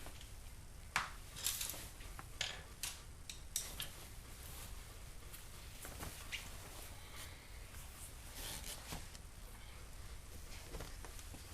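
Scattered light clicks and knocks from hands working behind a car door panel on the speaker mounting, several sharp ones in the first four seconds, then fainter rustling.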